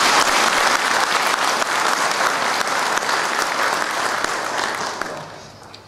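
An audience applauding with steady, dense clapping that dies away near the end.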